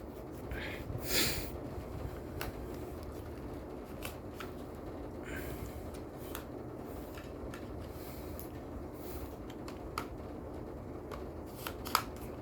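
Small handling noises as the tested UTP network cable and LAN tester are handled: scattered light clicks and a couple of brief rustles, with a sharper click near the end.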